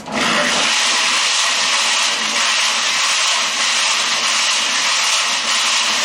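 Cement mixer switched on and tumbling a load of lead buckshot strings against steel blades in its drum: a loud, steady rushing rattle of shot that starts suddenly, as the blades break the strings into single pellets.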